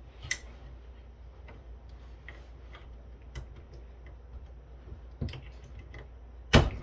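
Scattered light clicks and taps of parts and tools being handled while a rack-mount KVM switch is taken apart, with a few sharper knocks, the loudest near the end.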